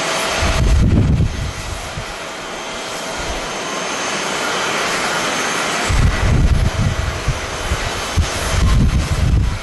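Jet airliner engines making a steady loud rush, with low rumbling gusts of strong wind buffeting the microphone about half a second in and again through the last few seconds.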